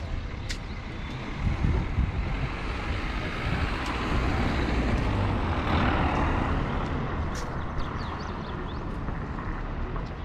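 Street traffic: a motor vehicle passes close by, swelling to its loudest about six seconds in and then fading, over a steady low rumble of traffic.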